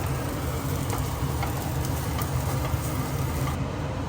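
Kimchi and vegetables sizzling in a wok over a steady low hum of kitchen stove noise, with a few faint ticks.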